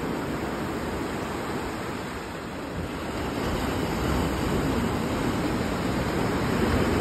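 Sea surf breaking and washing up a sandy beach, a steady rushing wash that swells louder in the second half as a wave breaks.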